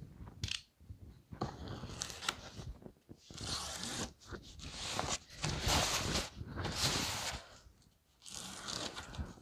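A box cutter slitting the packing tape on a large cardboard box, in several strokes with short pauses between, the longest and loudest in the middle.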